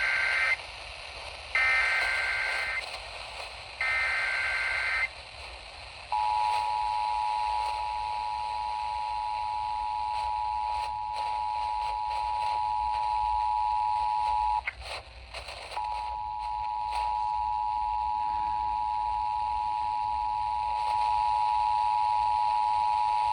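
Emergency Alert System signal heard over radio with light hiss. It opens with the end of one burst of the SAME digital header and two more full bursts, each about a second of screechy data, then the steady two-tone attention signal. The tone breaks briefly about halfway through, then continues almost to the end.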